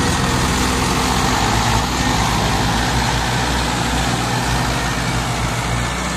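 Mahindra 575 tractors' four-cylinder diesel engines running hard under heavy load, pulling a sand-laden tipper trailer through soft ground, with a steady engine note.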